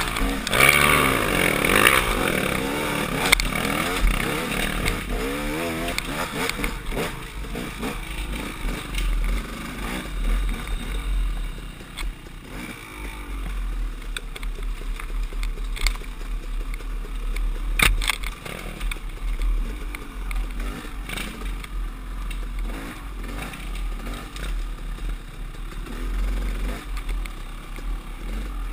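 KTM two-stroke dirt bike engine revving hard, its pitch rising and falling with the throttle for the first six seconds or so while climbing a dirt hill, then running at lower revs along a wooded trail, with scrapes and clatter and one sharp knock about halfway through. Wind rumble on the helmet microphone.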